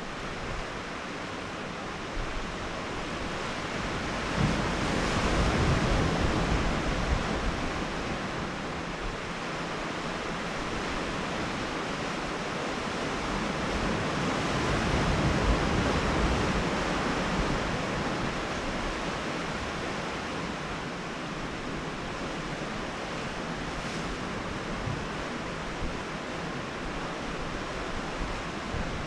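Sea surf washing against a rocky volcanic shore, a steady rush that rises and falls in two slow swells, mixed with some wind.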